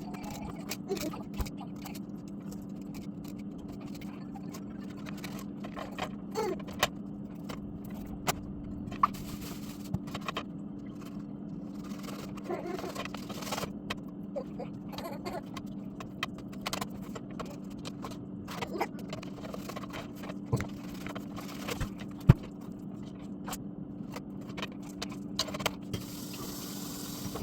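Irregular scrapes, clicks and rattles of objects being handled, over a steady low hum, with two brief stretches of hiss.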